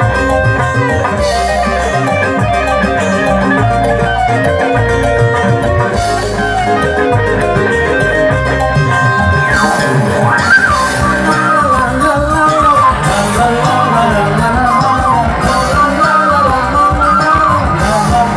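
Live band music led by an electric guitar solo over bass and drums: held notes at first, then from about halfway wavering, bent notes.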